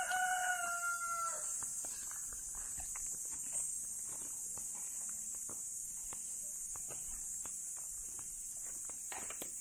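A rooster crowing: one long, slightly falling note that ends about a second and a half in. After it come faint scattered footfalls on a dirt path over a steady high-pitched insect buzz.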